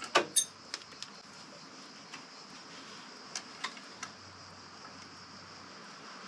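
A few light, sharp clicks and taps, most near the start and a few around three to four seconds in, over a steady low hiss. No horn blast sounds.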